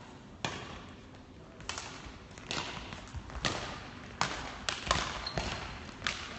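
Badminton rackets striking a shuttlecock during a doubles rally: a string of sharp hits, roughly one every half second to a second, echoing in a large sports hall.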